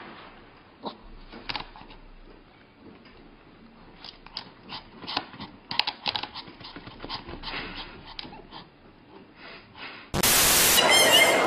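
A small puppy's paws tapping and scraping on a glass tabletop in quick scattered taps, with faint room hiss. About ten seconds in, a sudden cut to much louder street noise.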